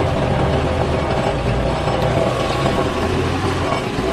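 Truck engine running with a steady low drone as the truck drives along a rough dirt road; the engine eases off near the end as the truck comes to a stop.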